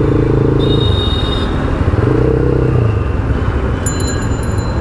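Taro GP V3 motorcycle engine running while riding, its pitch dipping and rising again about halfway through, over steady wind and road noise.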